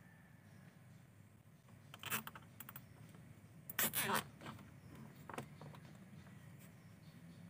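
Nylon cable tie being pulled through its ratchet head, two short zipping pulls about two seconds apart, the second louder, as the tie is cinched tight around the grille mesh and bracket.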